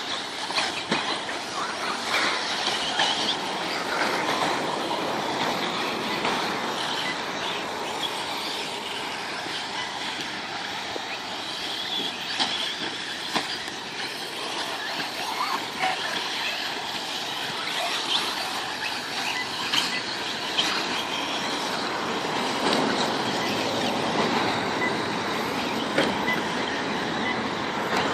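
Several 1/8-scale electric RC buggies racing on dirt: a steady whine from their electric motors and drivetrains, with occasional short sharp knocks.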